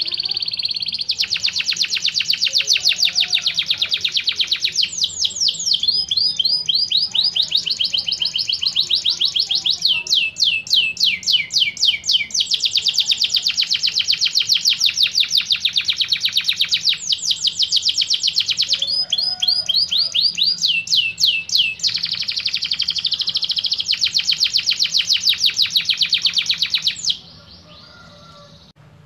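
Domestic canary singing a long, unbroken song of fast rolling trills. It switches every few seconds between rapid repeated notes and quick downward-sweeping phrases, then stops abruptly near the end.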